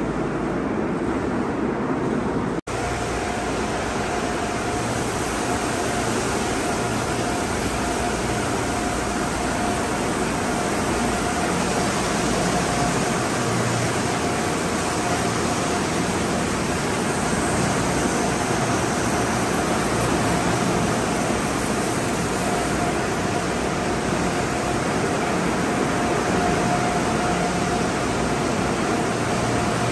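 Tunnel car wash equipment running: a steady hiss of water jets spraying onto a car over the drone of pumps and motors, with a faint steady hum. The sound drops out for an instant about two and a half seconds in.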